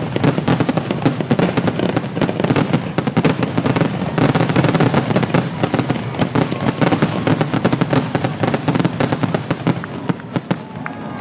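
Fireworks grand-finale barrage: a rapid, continuous volley of launches and shell bursts, too many to count, thinning slightly near the end.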